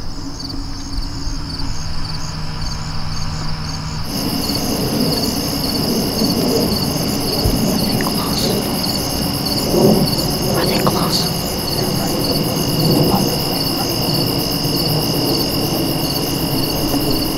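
Late-summer field insects trilling in a steady chorus. About four seconds in, a louder, higher pulsing trill comes in over them.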